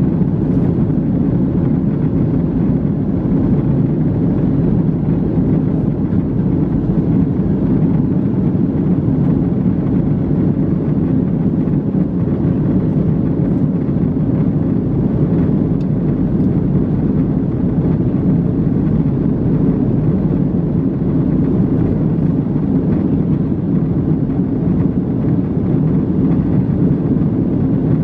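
Steady cabin noise of an Airbus A321neo airliner in flight: a constant low rush of engine and airflow noise with a faint steady hum.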